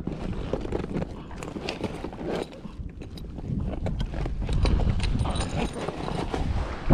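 Irregular knocks and clatter of handling on a plastic kayak and its gear, over a low wind rumble on the microphone.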